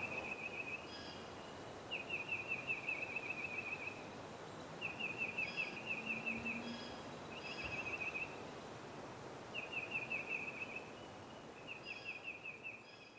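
A songbird singing the same rapid trill over and over, about six songs, each a fast run of notes lasting one to two seconds with a short pause between, over faint outdoor ambience.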